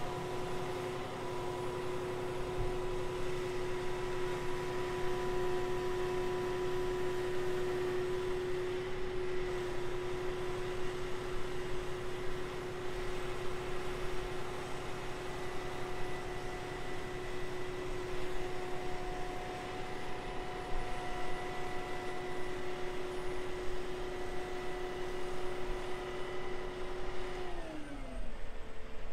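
Crane truck's diesel engine running steadily at raised revs while the hydraulic boom lifts a heavy concrete septic tank. Near the end the pitch falls as the engine drops back toward idle.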